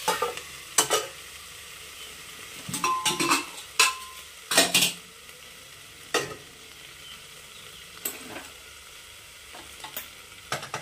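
Ivy gourd (kundru) frying under a steel lid in a steel kadai, a steady low sizzle. Over it, a scattering of sharp metal clanks from the lid, spatula and pots, one ringing briefly about three seconds in.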